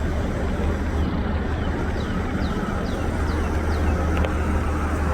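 Steady low rumble of an idling vehicle engine, with a run of about half a dozen short, high falling chirps in the middle.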